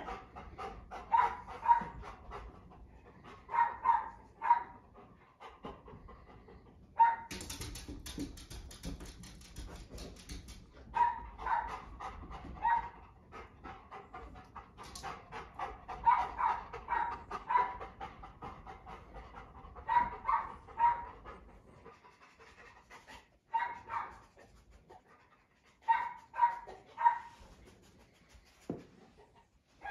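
Golden retriever panting in short bouts of quick breaths, with a few seconds of rustling noise about seven seconds in.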